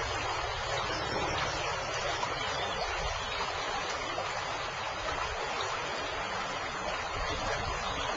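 A stream's flowing water rushing steadily.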